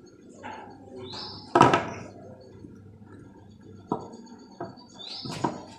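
Knocks and clatter of hard objects being handled during plumbing work: one loud knock about one and a half seconds in, then a few lighter clicks near the end.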